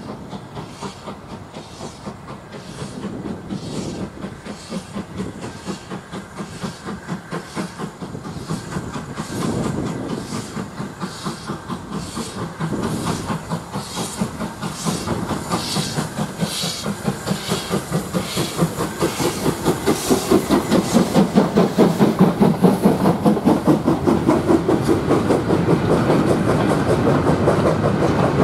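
Steam locomotive working a goods train, its regular exhaust beats growing louder as it approaches. From about two-thirds of the way in, the wheels of the freight wagons clatter rhythmically over the rail joints as they pass close by.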